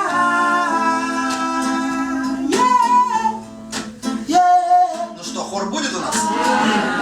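Live acoustic song: acoustic guitar strumming under a voice holding long sung notes.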